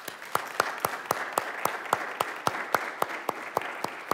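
Applause from a small congregation, led by one person's sharp, even hand claps at about four a second that stand out over the softer clapping of the others.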